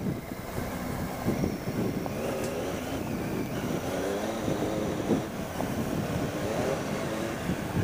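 Triumph Tiger 800 XCx's three-cylinder engine pulling steadily as the bike gathers speed on a gravel road, its pitch climbing in stretches as the revs rise, over a steady rush of road and wind noise.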